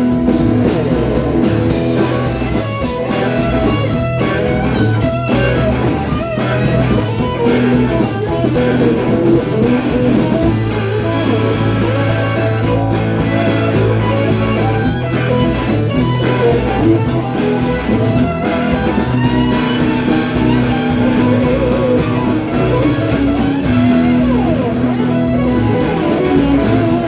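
Live blues-rock band in an instrumental break: a guitar takes a lead solo of quick, bending runs over bass guitar and drums.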